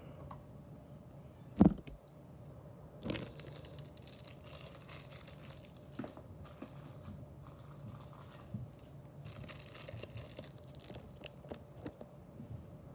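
Packaging crinkling and rustling in the hands, with scattered small clicks, as carded diecast toy cars are handled. A single sharp knock about two seconds in is the loudest sound.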